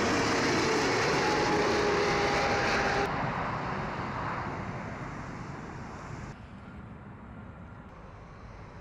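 Jet engines of a Korean Air Cargo Boeing 777 freighter on a crosswind approach that ends in a go-around: a loud, steady rush with a faint whine that drifts slightly lower in pitch. After abrupt changes about three and six seconds in, it fades to a quieter rush.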